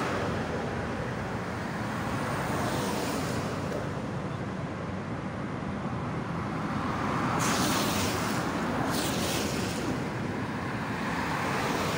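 Road traffic noise from vehicles passing on the road, a steady rush that swells as vehicles go by, most clearly about seven and a half seconds in.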